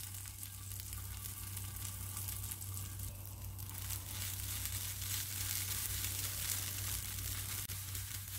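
Poha-and-egg adai batter sizzling on a hot nonstick dosa tawa as a steel spoon pats and spreads it into a round, with light scraping from the spoon.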